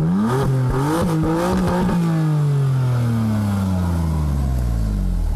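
BMW M3's 3.0-litre twin-turbo straight-six sounding through its quad exhaust: the revs rise and blip up and down, then the note falls steadily over the last three seconds.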